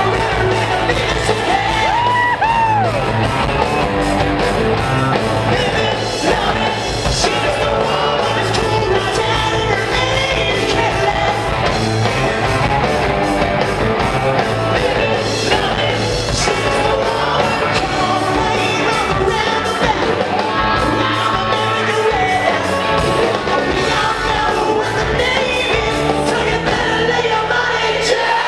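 Live rock band playing: electric guitars through amplifier stacks, bass and a drum kit, with a singer's voice over it, sliding up and down in long swooping notes about two seconds in and again near the end.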